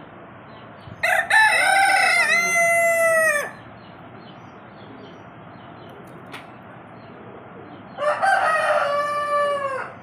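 Rooster crowing twice: one crow of about two and a half seconds, then a slightly shorter one about seven seconds later.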